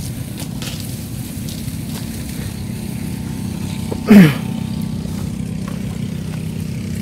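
Small boat engine running steadily at low revs. About four seconds in, a short falling vocal sound rises briefly above it.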